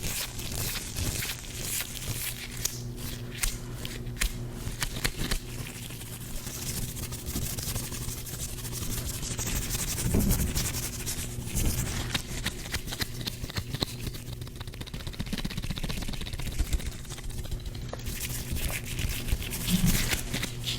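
Gloved hands rubbing and scraping against each other close to the microphone, a continuous rustle full of small crackles and clicks.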